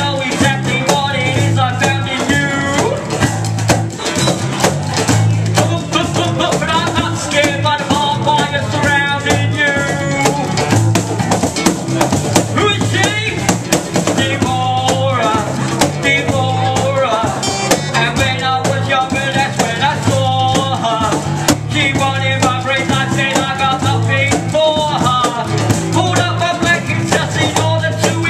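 Live band music: rapping over strummed acoustic guitar, bass guitar and a cajón keeping a steady beat.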